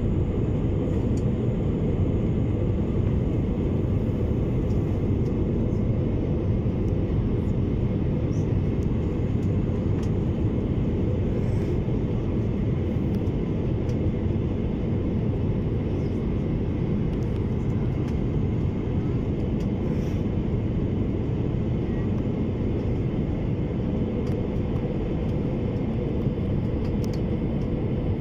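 Steady low rumble of a jet airliner's cabin, heard from a window seat beside the wing-mounted turbofan engine as the plane descends.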